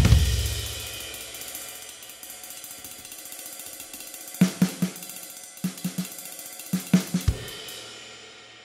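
Drum kit music breaks off and a cymbal rings on, fading slowly. Over the fading ring come three short clusters of quick drum hits, about a second apart.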